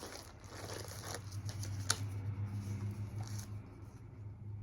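Plastic mailer packaging crinkling and rustling as it is handled and opened, with a sharp click about two seconds in; the crackling dies down after about three and a half seconds, leaving a steady low hum.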